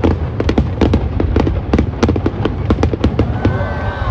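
Fireworks display: a rapid, dense run of crackling bangs, about five a second, over a continuous low rumble of shells bursting together.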